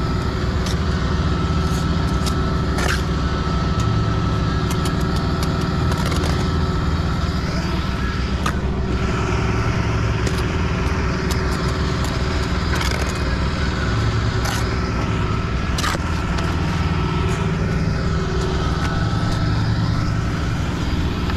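An engine running steadily, with scraping and sharp knocks or clicks now and then over it.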